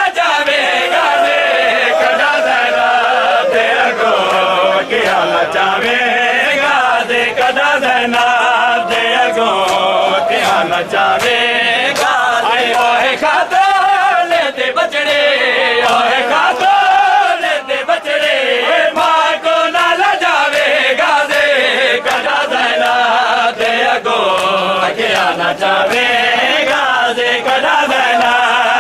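A crowd of men chanting a nauha (a mourning lament) loudly in unison, the voices running on without a break. Through it come frequent, evenly spaced sharp slaps of matam, the mourners beating their chests.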